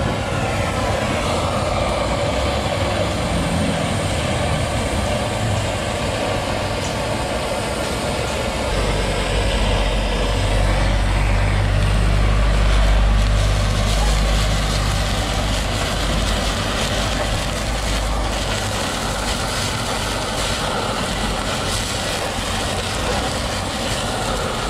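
Handheld butane blowtorch burning with a steady rushing hiss. A deep engine rumble from a vehicle swells and fades in the middle.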